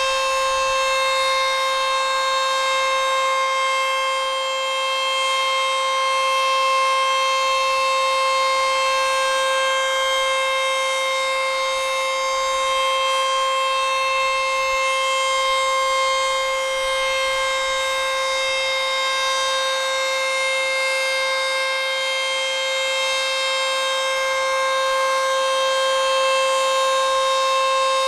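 ACA Screamer S-2 outdoor warning siren sounding a full alert: one steady, unwavering tone with strong overtones, its loudness swelling and easing only slightly.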